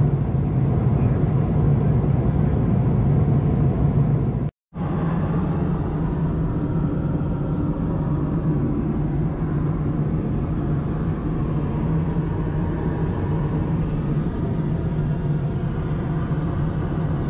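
Steady drone of an Airbus A330-200 in flight, heard inside the cabin: a low engine hum under a hiss of airflow. About four and a half seconds in it drops out for an instant, then resumes a little quieter and duller.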